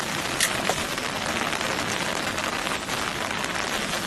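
Steady hiss of water, with a short light click about half a second in.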